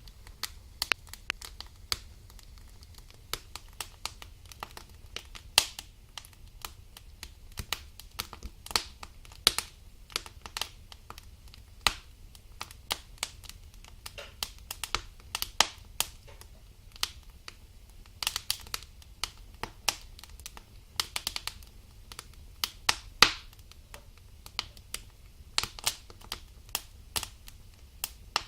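Balsam fir logs burning in a fireplace, crackling with frequent irregular snaps and pops, a few much louder than the rest.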